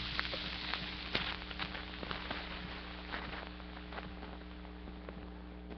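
Faint crackling and scattered sharp clicks over a steady electrical hum. The crackle dies away near the end, leaving only the hum.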